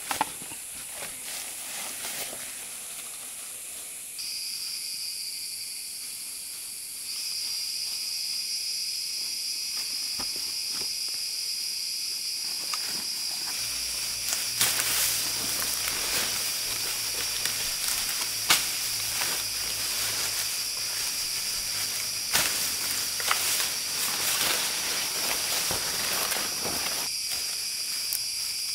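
Insects droning steadily at several high pitches; a shrill one comes in about four seconds in and grows louder about three seconds later. Through the middle and latter part, rustling with many sharp clicks and snaps, as of leaf litter and twigs being handled or stepped on.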